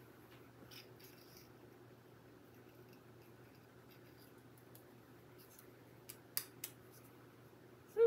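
Near silence: faint room tone with a low steady hum, broken by two short clicks about six and a half seconds in.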